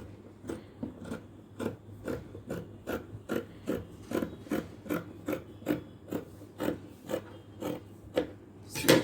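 Scissors cutting through folded fabric along a curve, in steady repeated snips about two to three a second, with one louder snip near the end.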